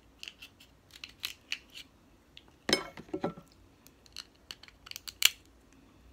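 Kitchen scissors snipping through snow crab leg shell, and the shell cracking as it is broken and picked apart by hand: a string of sharp clicks and cracks, with a louder crunching cluster about three seconds in and a sharp snap near the end.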